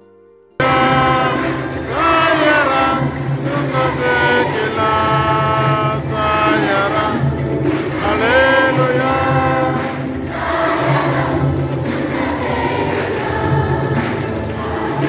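Choir singing a hymn with instrumental accompaniment, cutting in suddenly about half a second in.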